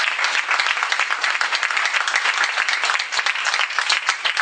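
A small audience applauding, a steady patter of many quick hand claps.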